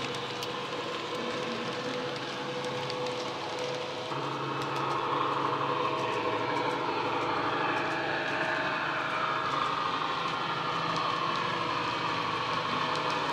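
DCC sound decoder playing a Class 70 diesel locomotive's engine under power through the model's small EM1 speaker, a steady engine note with a whine that rises and falls in pitch from about four seconds in, over the running noise of the model train on the track.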